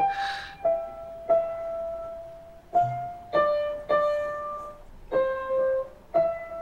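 Piano playing a slow melody of single notes, about eight in all, each struck and left to ring before the next.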